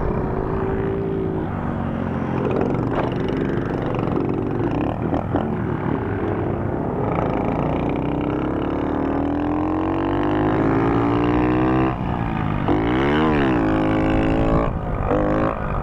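Small moped engine revving hard during a wheelie, its pitch climbing slowly for several seconds, then dipping sharply and rising again about thirteen seconds in.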